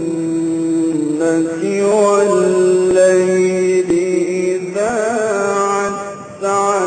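A man's voice reciting the Quran in a slow, ornamented chant, holding long notes with melodic turns and a brief break about six seconds in.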